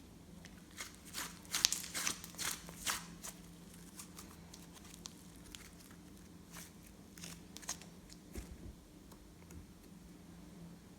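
Slime being handled and squished by hand, giving sharp sticky clicks and crackles, thickest in the first few seconds and then sparser, over a steady low hum.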